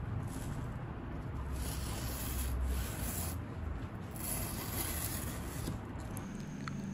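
Brown packing tape being peeled off a corrugated cardboard shipping box: a steady tearing noise, loudest about two to three seconds in.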